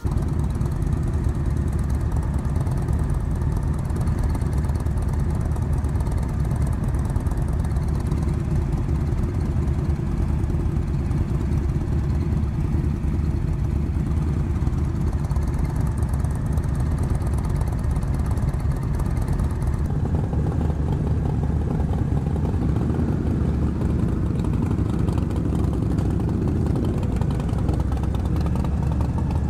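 Motorcycle engines idling steadily, several bikes together. About twenty seconds in the sound shifts and grows fuller in the middle range as bikes nearby begin to move off.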